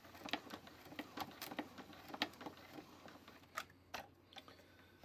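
Irregular light clicks and taps of hard plastic parts being handled on a 1993 Mattel McDonald's Happy Meal hamburger snack maker toy, as more of the sticky peanut-butter mixture is worked out of it.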